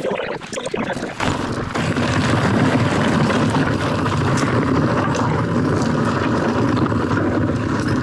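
Commencal Meta TR mountain bike descending a dirt singletrack: tyres rolling over dirt and roots, with wind buffeting the microphone. It is a steady rumble that starts about a second in, after a quieter moment with a few clicks.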